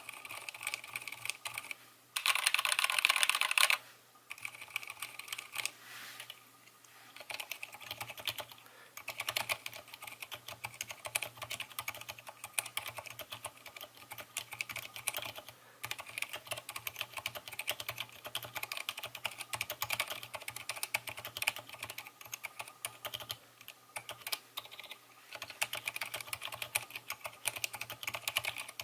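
Typing on a keyboard fitted with Cherry MX Silent Black linear switches, whose rubber bumpers on the stem damp the bottom-out and return: a steady patter of muted keystrokes. A louder, denser burst of key clatter comes between about two and four seconds in.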